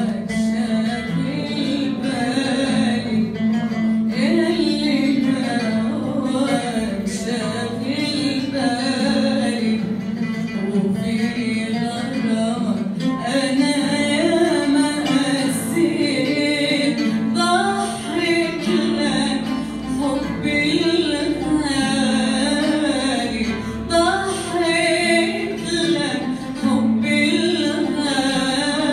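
A woman singing an Arabic song and accompanying herself on the oud, the plucked notes running under her voice.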